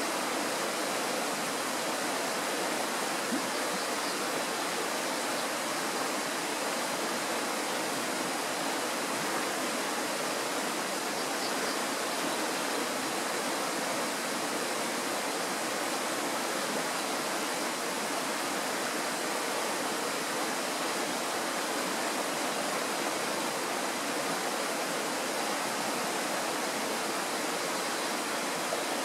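Mountain stream running steadily: an even, unbroken wash of water noise.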